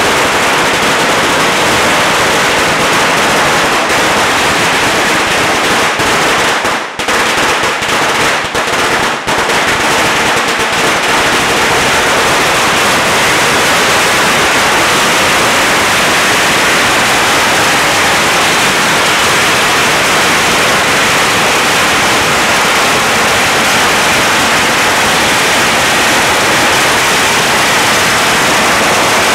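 Strings of Chinese firecrackers going off in a dense, continuous rapid-fire crackle of bangs, faltering briefly twice about seven and nine seconds in.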